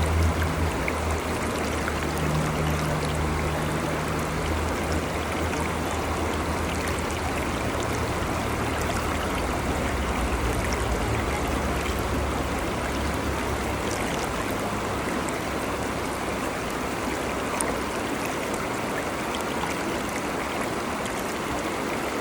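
Stream water running steadily, with a low hum under it that fades out about two-thirds of the way through.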